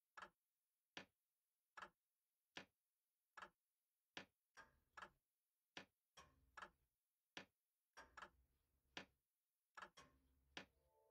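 Faint clock ticking steadily, one sharp tick about every 0.8 seconds. From about four seconds in, a fainter low rumbling noise comes and goes between the ticks.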